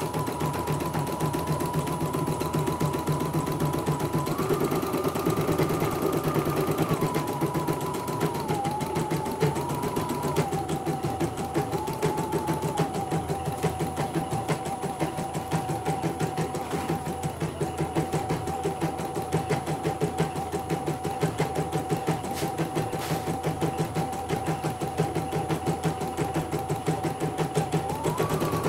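CNY computerised embroidery machine stitching a design during a test run after repair: rapid, even needle strokes over a steady motor whine that shifts up and down in pitch in steps a few times as it works.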